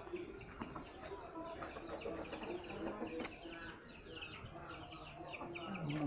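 Chickens calling: a hen's low clucks, joined from about halfway through by a rapid run of high, thin chick peeps.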